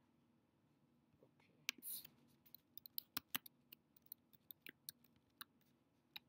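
Computer keyboard typing: an irregular run of sharp keystroke clicks that starts about a second and a half in, as a short command is typed.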